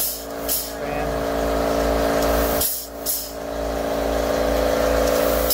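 Tube-style epoxy dispensing gun's motor running steadily as it pushes epoxy into holes in overhead wood, easing off briefly about two and a half seconds in and then building again.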